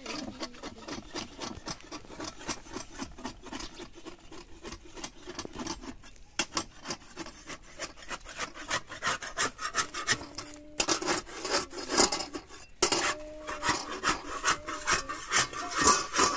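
Metal spatula scraping and working a flatbread on a hot round iron griddle (saj) in quick, repeated strokes, louder in the second half with a brief pause.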